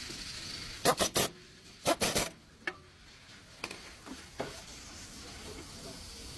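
Two quick clusters of about three sharp knocks each, a second apart, followed by a few single clicks.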